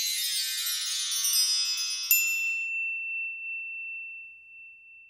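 Logo chime jingle: a cascade of high, shimmering chime tones fading away, then a single bright ding about two seconds in whose one high tone rings on and slowly dies out.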